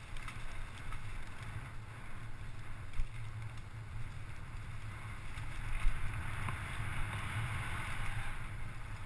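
Mountain bike descending a dirt trail: steady tyre and drivetrain rattle with wind buffeting the microphone, and a couple of sharper knocks from bumps about three and six seconds in.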